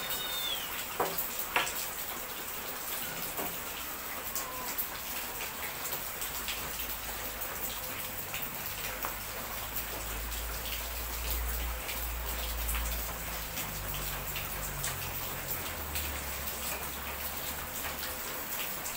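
Steady rain pattering, a dense crackle of small drops that runs on evenly, with a low hum rising under it from about six seconds in until about sixteen seconds.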